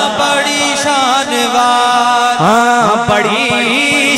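A male voice sings a naat with a long melismatic line that bends and glides between held notes, over a steady low drone.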